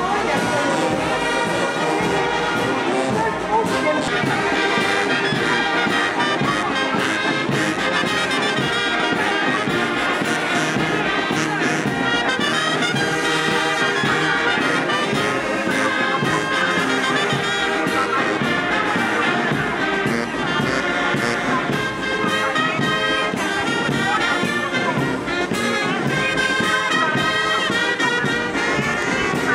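Brass band music playing steadily, with trumpets and trombones.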